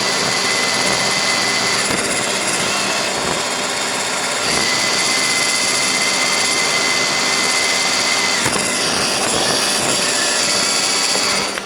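Roomba robot vacuum running, heard from on top of it: a steady whir from its motor and brushes, with a thin high whine that comes and goes.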